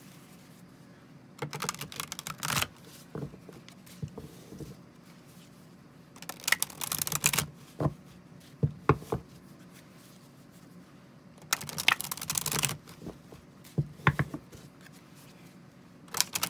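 A tarot deck being shuffled by hand in three bursts of about a second each, several seconds apart, with a few sharp single clicks in between. Another burst of shuffling starts near the end.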